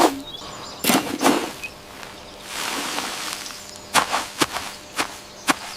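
Animation sound effects: a run of sharp taps and knocks, two about a second in and a quicker cluster of five near the end, with a soft rushing swell between them.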